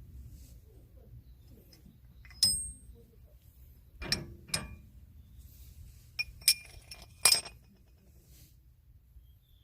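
About half a dozen sharp metallic clinks, some with a brief bright ring, as metal pieces are knocked together and handled.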